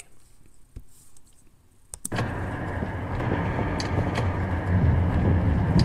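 A faint click about two seconds in, then a steady low rumble with hiss of a vehicle driving: the road noise on the clip's own soundtrack as it plays back, growing slightly louder toward the end.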